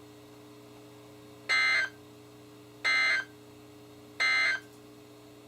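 Three short, harsh digital data bursts from a NOAA Weather Radio broadcast, heard through a weather radio's speaker, evenly spaced about a second and a half apart, with a low hum between them. These are the SAME end-of-message bursts that close the alert just read.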